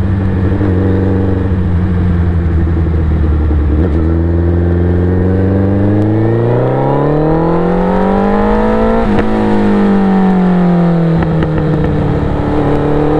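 Suzuki Hayabusa's inline-four engine through an aftermarket Racefit exhaust, heard from the saddle while riding. The revs hold steady, then climb over about three seconds, fall away again after a sharp click, and settle to a steady note near the end.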